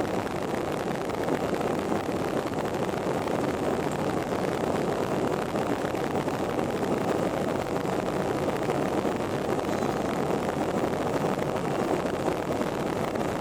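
Airplane noise: a steady, even rumble of engines and rushing air that holds at one level, with no rise or fall.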